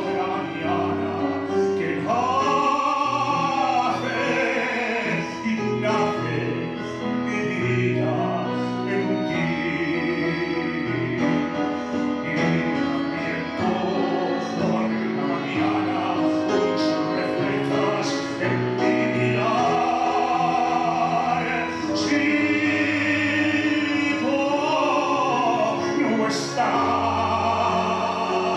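A male singer singing a ballad through a microphone, with held notes that waver in vibrato, accompanied by piano and violin.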